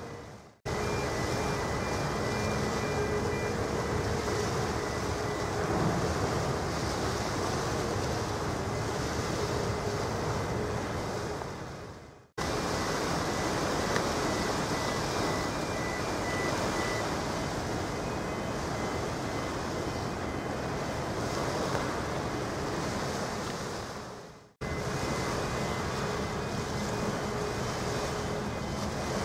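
Steady outdoor wind and water noise with a faint steady machinery hum from the passing ships. The sound fades away and cuts back in abruptly twice, at edits.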